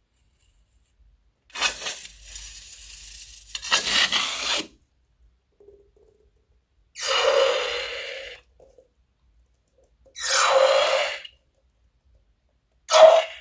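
Scissors snipping a balloon's rubber neck, then blue slime squeezed out of the cut balloon onto a mound of white slime in several separate bursts of a second or two each.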